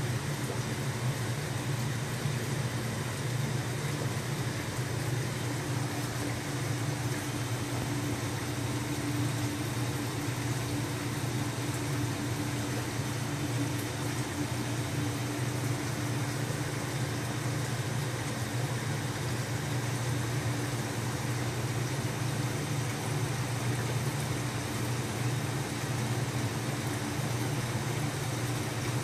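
Steady machine hum of running aquarium equipment, a low hum with a fainter tone above it and a hiss over both, unchanging throughout.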